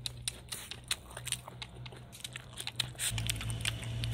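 A person eating from a bowl with chopsticks: close-up chewing, with quick, irregular clicks of the chopsticks against the bowl.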